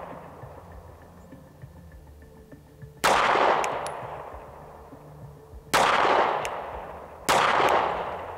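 Three single shots from a SIG Sauer P365 X-Macro Comp 9mm compensated pistol, fired slowly while sighting it in. The first comes about three seconds in and the last two closer together, each with a long fading echo; the tail of an earlier shot dies away at the start.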